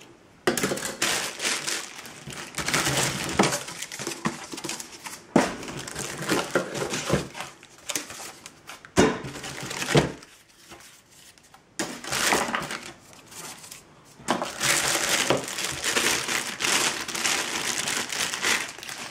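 Clear plastic packaging bags crinkling and rustling in irregular bursts as they are handled, with two sharp knocks about halfway through.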